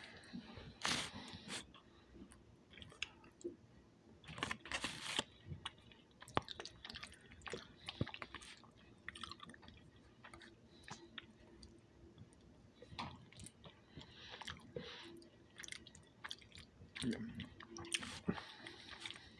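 A person chewing macaroni and cheese close to the microphone: irregular wet mouth clicks and smacks, with a few louder bursts now and then.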